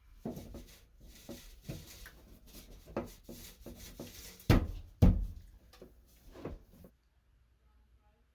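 Handling noise from a heavy 30-amp dryer plug and connector being worked into a wall receptacle: rubbing and scattered knocks, with two heavy thumps about half a second apart, then the handling stops.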